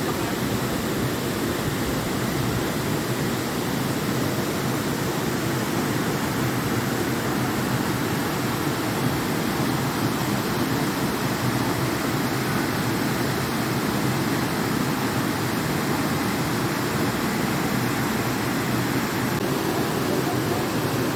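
Mountain stream running full, a steady rush of water that does not change.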